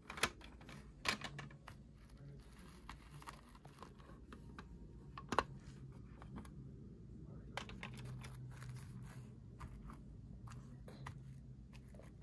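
Scattered light clicks and taps of hard plastic toy animal figures being handled and set down on a plastic toy trailer and artificial grass, the sharpest about five seconds in, over a faint low hum.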